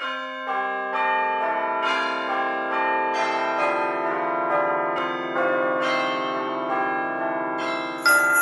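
Bells ringing a slow melody, each note struck about every half second to a second and ringing on into the next. Sleigh bells come in shaking near the end.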